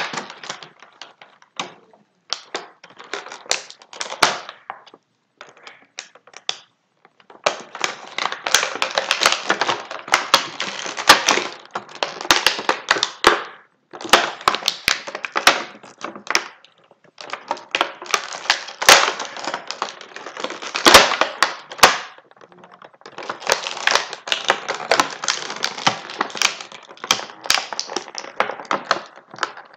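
Stiff plastic and cardboard action-figure packaging crackling and clicking as it is pulled and pried at by hand, in long runs of rapid crackles with short pauses between. The packaging is proving hard to open.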